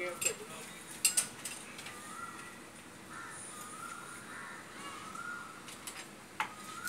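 Steel scaffolding frames clanking as they are handled and taken apart, with a sharp metal double clink about a second in and another clink near the end. A faint wavering whistle carries on in the background.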